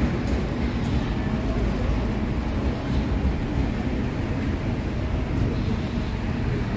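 Steady city street ambience, mostly a low rumble of traffic, with no distinct events standing out.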